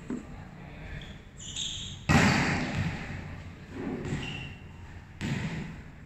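A ball striking the hard court floor: two loud hits, about two and five seconds in, each echoing and dying away slowly in a large hall.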